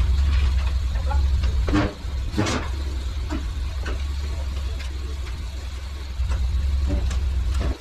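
Truck engine idling with a steady low hum that drops in level about two seconds in and comes back up near the end, with a couple of short knocks around two seconds in.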